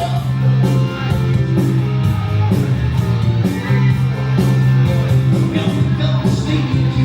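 Rock music with guitar, a prominent bass line and a steady drum beat.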